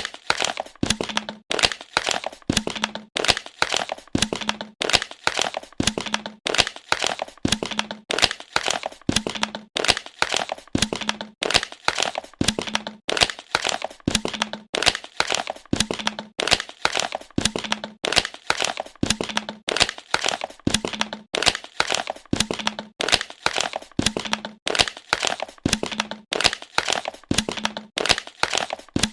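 Plastic bottle being squeezed and crushed, crackling and crinkling over and over in a steady pattern that repeats about every second and a half.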